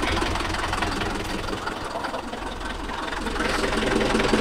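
Mahindra Yuvo Tech 585 tractor's diesel engine idling steadily, dipping slightly in level midway and picking up again toward the end.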